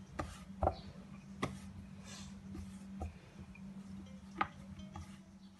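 Rolling pin working dough on a wooden chapati board, giving a handful of irregular light knocks and taps as the board shifts and slips on the counter.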